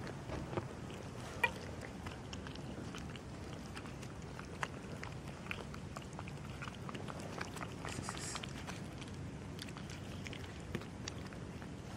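Several cats eating wet food from a plastic tub: scattered small clicks and smacks of chewing and lapping.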